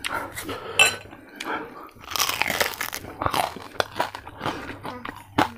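Crispy fried pork being bitten and chewed close to the microphone: irregular crunches and crackles, thickest about two to three seconds in.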